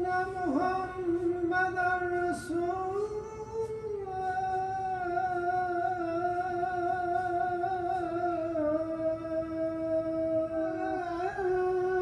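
A man's solo voice chanting the adhan, the Islamic call to prayer, in long drawn-out notes that waver slightly and glide between pitches.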